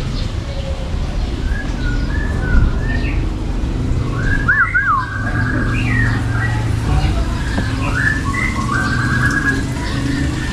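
Several cage birds chirping, whistling and trilling in short phrases, with a quick warbling whistle about four and a half seconds in, over a steady low hum.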